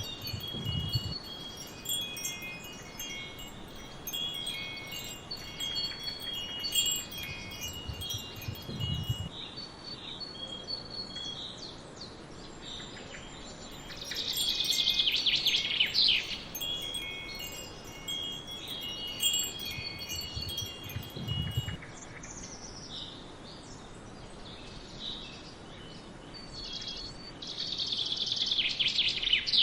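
Wind chimes ringing, high tones sounding in irregular clusters, with brighter flurries about halfway through and again near the end. Birds chirp faintly in the background.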